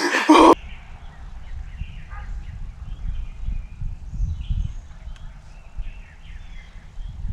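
Steady low rumbling noise on the microphone, with faint birds chirping scattered through it. A man's excited voice cuts off about half a second in.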